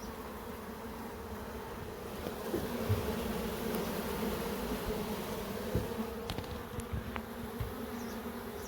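Many honeybees buzzing steadily in flight around a newly relocated hive box, the flying bees heading in to the hive to reorientate to it.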